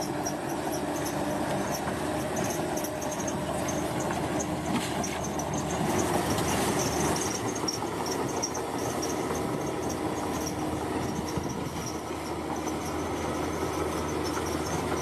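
Komatsu crawler bulldozer's diesel engine running steadily, with a rapid, faint high-pitched ticking over it, typical of a dozer working with its steel tracks moving.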